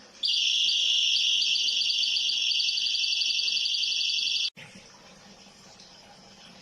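Buzzer of a homemade water-overflow alarm sounding a loud, high-pitched buzz for about four seconds, then cutting off suddenly: the sign that the water has reached the sensor's level.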